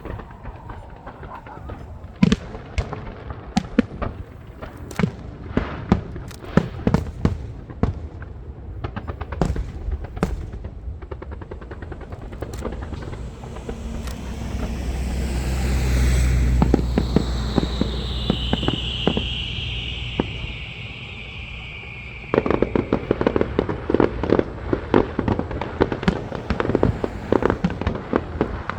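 Fireworks display: a string of sharp bangs and cracks from exploding shells, a low rumble that swells to a peak about halfway, then a long falling whistle. From about two-thirds in a dense, rapid crackling of many small pops takes over.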